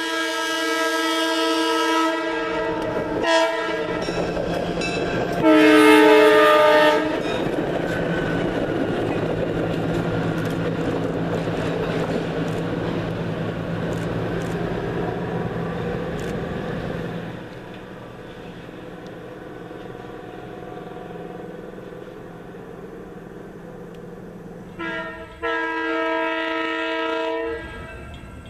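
Diesel locomotive's multi-tone air horn blowing for a grade crossing: a long blast, a short one and a louder long one, then the engine's low rumble and the train running past. Near the end the horn sounds again, short then long.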